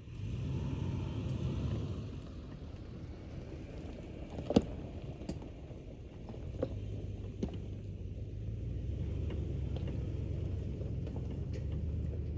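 2004 Lexus GX470's 4.7-litre V8 and tyre rumble heard from inside the cabin while driving. There is one sharp knock about four and a half seconds in and a few lighter clicks and rattles after it.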